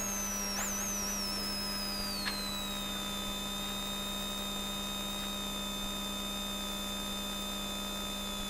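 Steady electrical hum on the rally car's intercom audio line, with a thin high whine that falls in pitch over the first three seconds as the car slows to a stop, then holds steady. A couple of faint clicks come in the first few seconds.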